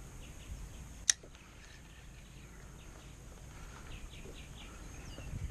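Faint bird chirps over a low wind rumble, with one sharp click about a second in.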